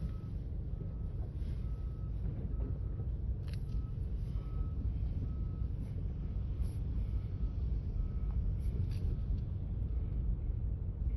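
A vehicle's reversing alarm beeping at a steady pace, less than a second between beeps, over a low engine rumble. The beeps stop about eight seconds in while the rumble carries on.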